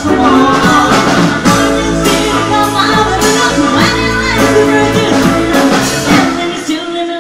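Live rock band playing: two electric guitars and a drum kit, with a harmonica.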